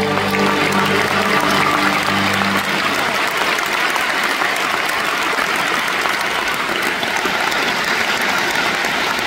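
Concert audience applauding. The band and orchestra's final held chord rings under the clapping and ends about two and a half seconds in.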